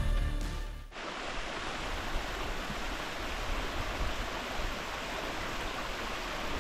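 Background music fading out in the first second, then the steady rush of a running stream.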